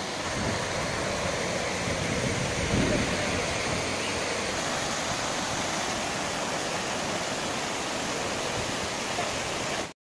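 Water rushing steadily over a low concrete weir: an even, unbroken rush with a brief low rumble about three seconds in. The sound cuts off abruptly just before the end.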